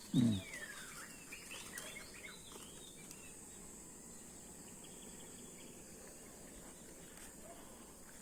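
Birds chirping in quick short calls over a steady high insect drone; the chirps thin out after about three seconds. A brief low sound, the loudest thing here, comes right at the start.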